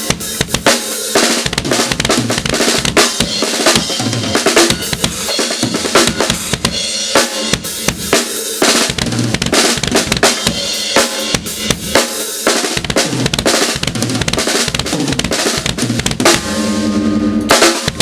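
Drum kit played with bass drum, snare and rimshot hits, the bass drum struck by Tama Iron Cobra pedals fitted with upgraded cams. The playing stops near the end, leaving a ringing tone.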